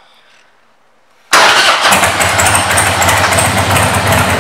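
Harley-Davidson Heritage Softail Classic's Twin Cam 88B V-twin, fitted with a Screaming Eagle exhaust, fires up suddenly about a second in and settles straight into a loud, steady idle.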